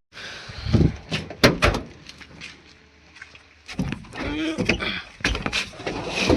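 A series of sharp knocks and clunks, four close together in the first two seconds and more scattered ones near the end, with muffled speech between them.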